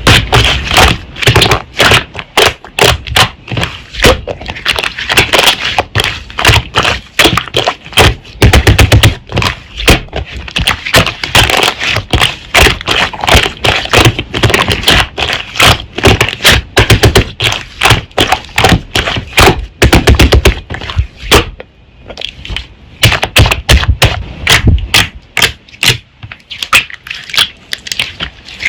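Slime being pressed, poked and squeezed by hand, making rapid crackling clicks and pops.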